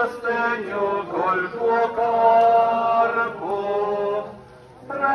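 Religious chant sung on long, held notes in slow phrases, with a short pause about four and a half seconds in before the next phrase begins.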